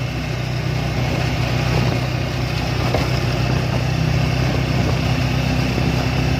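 Motorcycle tricycle's engine running at a steady pace while under way, a continuous hum with road noise.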